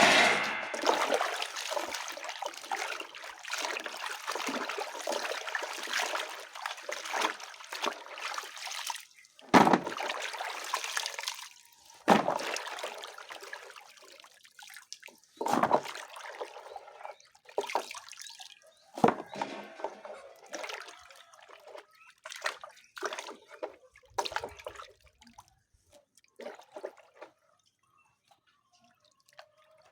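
Water running and splashing, a continuous rush for about the first nine seconds, then a series of shorter separate splashes that grow sparser and fainter.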